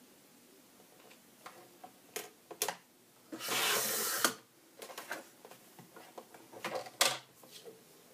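Fiskars sliding-blade paper trimmer: a few clicks as the paper is set against the rail, then the blade carriage slides down its track slicing through the paper for about a second, ending in a click. Paper is then shuffled, with a sharp click near the end.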